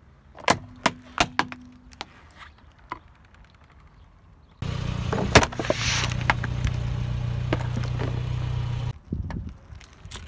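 A yellow plastic box cracking under a car tyre: about five sharp snaps in the first two seconds. About halfway through, a car's engine comes in, running steadily with a loud crunch as the tyre rolls onto a pale object. The engine cuts off abruptly near the end, leaving a few faint clicks.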